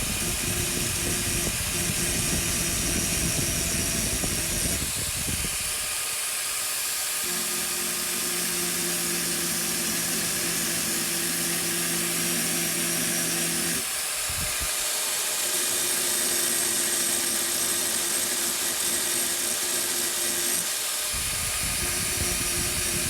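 Grinder running against the welded-up groove on a mower deck spindle shaft: a steady hiss throughout, with the low part of the sound changing several times as the wheel's contact shifts, rough about five seconds in and again near the end, steadier and humming in between.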